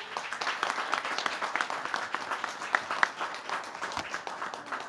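Applause: a roomful of people clapping their hands.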